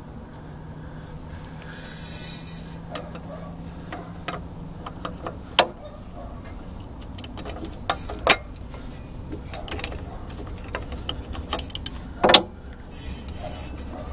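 Metal hand tools clinking and tapping as a socket is found and fitted to the brake bleeder on a car's rear brake backing plate. Scattered light clicks, with three sharper clanks about 5½, 8 and 12 seconds in.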